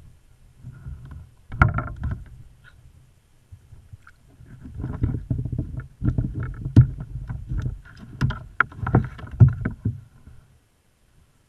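Irregular knocks, bumps and rustling as a caught bass and fishing gear are handled in a plastic kayak, with deep thuds and a few sharp clicks.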